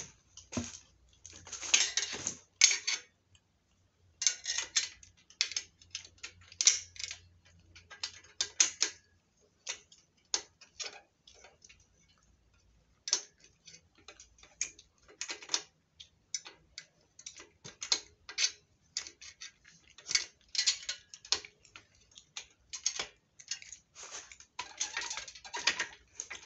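Irregular runs of sharp clicks and light clatters from hand tools and small metal fittings being worked and tightened on a workbench frame, with a pause of a few seconds partway through.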